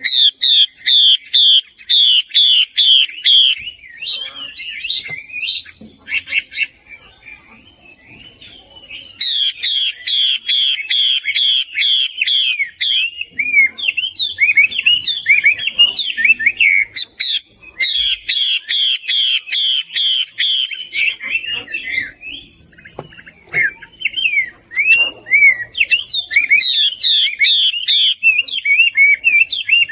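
Chinese hwamei (Garrulax canorus) singing, billed as a female hwamei's song. It sings loud runs of rapidly repeated, slurred whistled notes, broken by short pauses and by more varied, twisting phrases.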